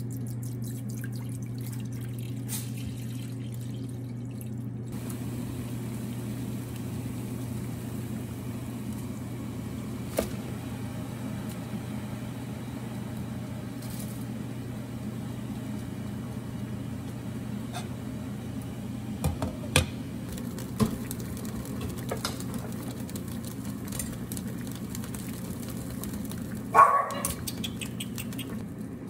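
Water poured from a jug into a stainless-steel pot, over a steady low hum. Later come a few sharp clicks, and near the end a short metallic clatter as metal tongs knock against the pot.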